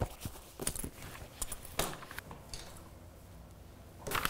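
A sketch folder and marker being handled: a few short, scratchy strokes and rustles, scattered and irregular.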